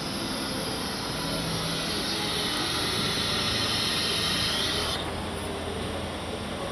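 CNC router running, with a loud, high-pitched hiss that grows stronger in the middle and cuts off suddenly about five seconds in, over a steady low machine hum.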